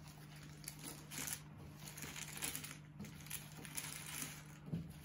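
Cardboard jigsaw puzzle being broken apart by hand, the pieces rustling and clicking against each other in an irregular patter.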